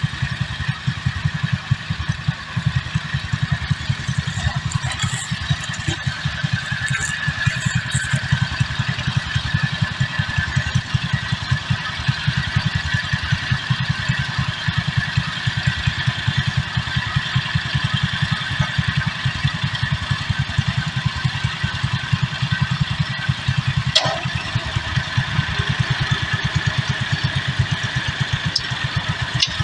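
Small farm tractor's engine running steadily under load as it tries to drag a heavy log, with rapid low firing pulses; a single sharp click near the end.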